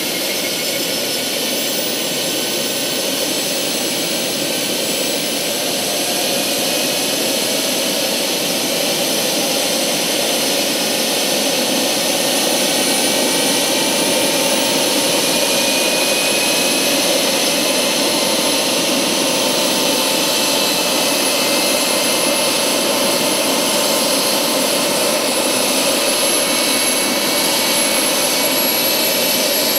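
Model gas-turbine engine of a Vario XLC RC helicopter running on the ground with its rotors turning, a steady jet-like whine over rushing noise. Its tones rise slowly in pitch and it grows slightly louder as the rotor spools up toward lift-off.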